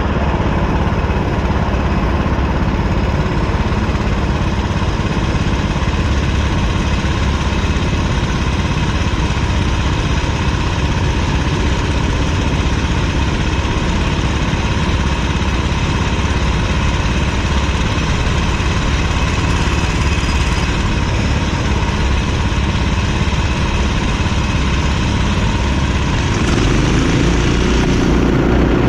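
Kart engine running steadily at low revs, then revving up, its pitch rising, about three seconds before the end.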